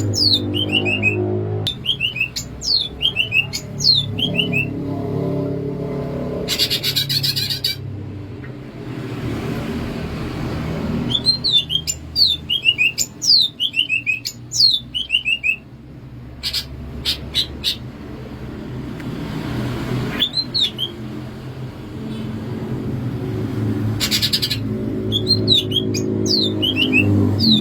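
Green leafbird (cucak ijo) singing: runs of quick, falling whistled notes, broken twice by a short buzzy chattering burst and once by a few sharp clicks.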